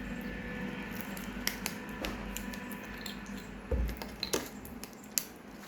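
Kitchen handling sounds: scattered light clicks and knocks of dishes or utensils, with a dull thud partway through, over a faint steady hum.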